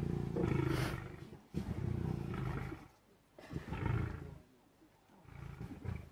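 Lions growling over a fresh zebra kill, in four low, rumbling bouts of about a second each with short pauses between.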